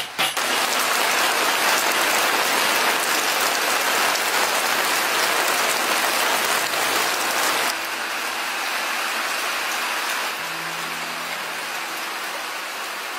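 Chicken frying in hot oil: a loud, steady crackling sizzle that drops in level about 8 seconds in and again a couple of seconds later.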